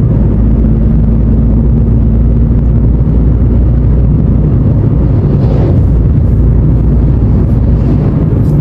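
Steady low road and engine noise inside a moving car's cabin at highway speed, with a brief hiss that swells and fades about five and a half seconds in.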